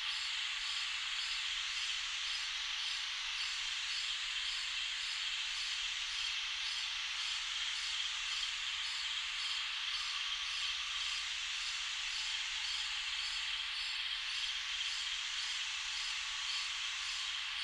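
Summer night ambience: a steady, high-pitched chorus of insects, with a faint even pulsing in the highest notes.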